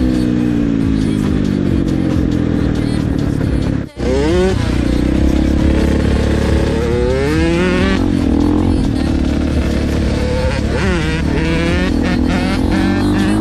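Dirt bike engine running under throttle while riding, with its pitch climbing in repeated rising sweeps as it accelerates through the gears. The sound drops out for an instant about four seconds in, then picks up again at a different pitch.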